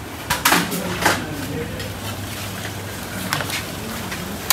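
Restaurant kitchen sounds: a few sharp clatters of metal bowls and utensils, mostly in the first second and once more near the end, over a steady low hum and faint voices.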